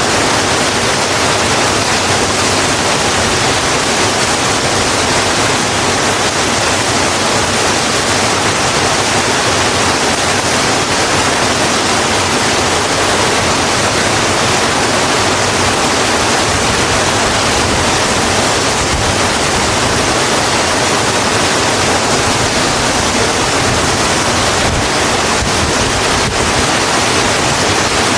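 Steady heavy rain, a dense even hiss with no breaks or separate drops standing out.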